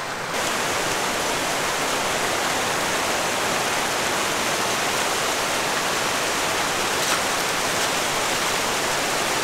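Mountain river rushing over a bed of boulders and stones: a steady, unbroken rush of water.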